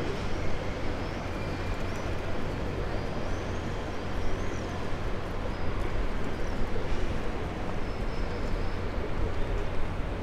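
Outdoor ambience of an open city square: a steady hum of distant traffic with a low rumble, and a few faint high chirps in the middle.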